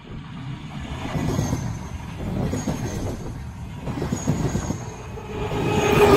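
Push-pull passenger train passing close by: the coaches rumble and clatter rhythmically over the rail, with a faint high wheel squeal now and then. Near the end the diesel locomotive pushing at the rear comes by, its engine drone swelling to the loudest point.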